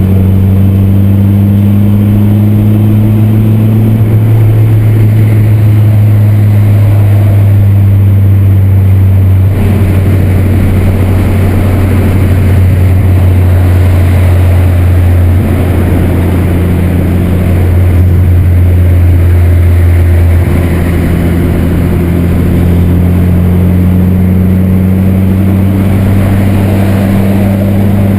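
VW Santana's 2.0-litre AP inline-four engine and exhaust rumbling steadily while driving at road speed. The pitch climbs slowly in stretches as it pulls, with a short drop in pitch and loudness about twenty seconds in.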